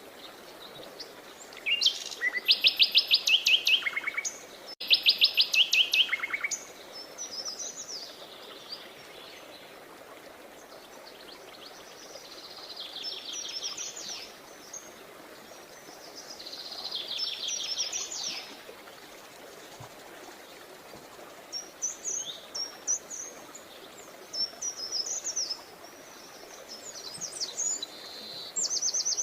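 Songbirds singing. Two loud, fast trills come early on, softer trilled phrases follow in the middle, and short chirps come in quick runs near the end, over a faint steady background hiss.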